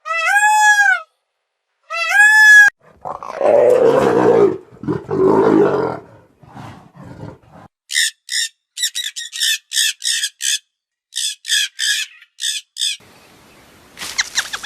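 A run of different animal calls: two short, high, arching calls, then two long, rough growls, then a quick series of short high chirps, with a burst of rapid clicking near the end.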